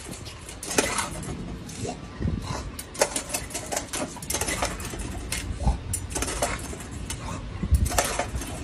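English bulldog working a step-on paw-pedal water fountain and biting at the spurting water: a run of irregular clacks and splashes.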